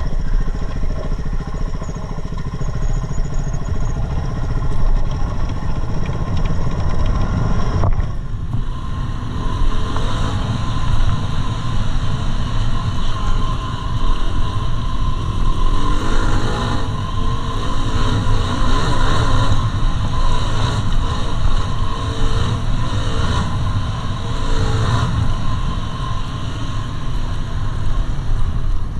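Yamaha WR250R's single-cylinder four-stroke engine running continuously as the motorcycle is ridden, its loudness swelling and easing throughout.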